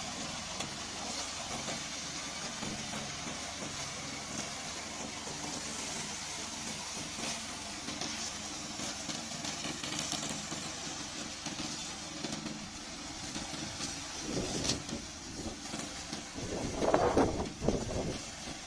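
A remote-control lawn mower's engine runs steadily, with louder surges twice near the end.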